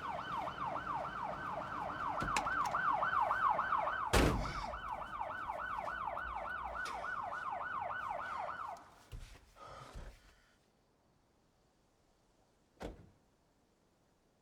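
Police car siren in fast yelp mode, about three sweeps a second, with a loud thunk about four seconds in. The siren cuts off about nine seconds in, followed by a couple of knocks and a single click near the end.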